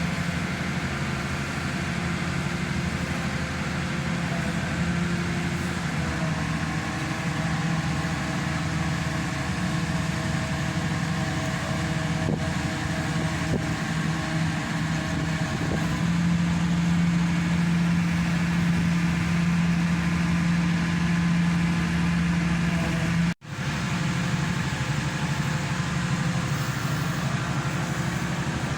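Hydraulic static pile driver's power unit running steadily with a low hum, growing louder a little past halfway through. The sound cuts out for an instant near the end, then resumes.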